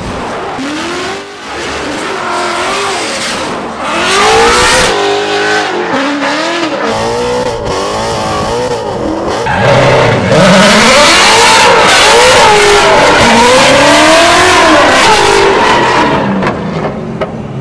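Supercharged Ford 5.0 Aluminator V8 in a Formula Drift Mustang revving hard while drifting, its pitch sweeping up and down again and again, with tyres squealing. It comes in several short cut-together clips and gets louder over the last several seconds.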